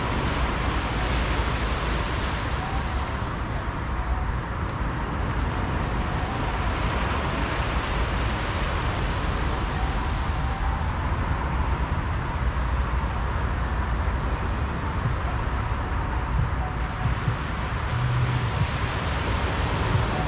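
Strong wind buffeting the microphone over breaking surf: a steady, noisy rush with a heavy low rumble, swelling about three times, at roughly 2, 9 and 19 seconds in.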